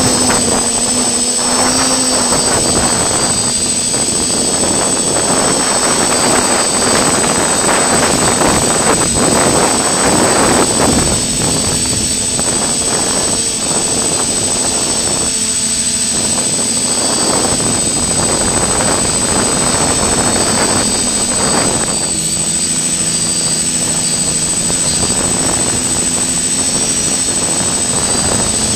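FPV racing drone's electric motors and propellers whining in flight, their pitch rising and falling with the throttle, with air rushing over the drone's own microphone. A steady high-pitched whine sits above it.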